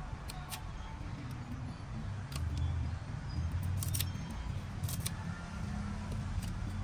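Hand pruning shears snipping and trimming a green sweetsop branch: a string of short, sharp clicks at irregular intervals, roughly a second apart, over a steady low rumble.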